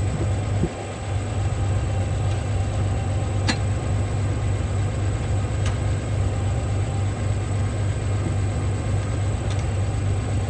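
International 460 Utility tractor's engine running steadily at idle, with two sharp clicks a few seconds in, about two seconds apart.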